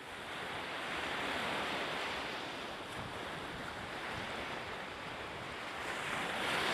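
Steady wash of sea and wind around a small harbour, swelling briefly near the end.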